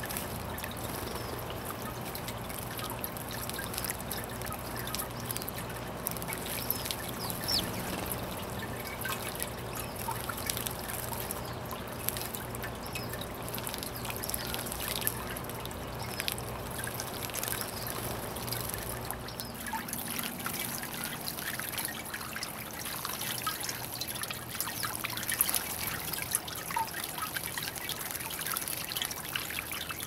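Garden fountain water trickling and splashing steadily into a porcelain bird-bath bowl, recirculated by a pump.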